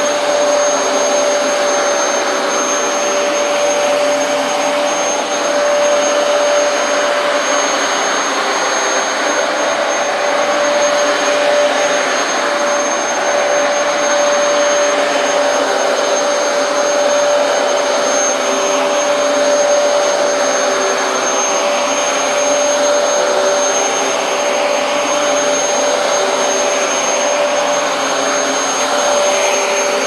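Vacuum cleaner running steadily on carpet, a constant motor noise with a steady whine in it.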